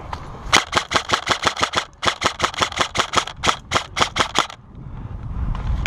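Airsoft gun firing a rapid string of sharp shots, about seven a second, starting about half a second in, with a brief break near the two-second mark, then a second longer string that stops at about four and a half seconds.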